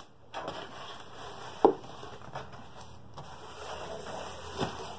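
Corrugated cardboard shipping box being handled and pushed aside, scraping and rustling. A sharp knock comes about a second and a half in, and a lighter one near the end.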